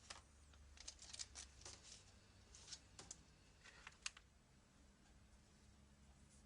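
Near silence broken by faint, scattered clicks and light handling noise in the first four seconds or so, from small computer parts being handled.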